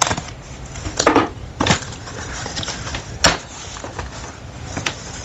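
Box and packaging being handled during unboxing: a handful of separate knocks, clicks and scrapes, the sharpest knock about three seconds in.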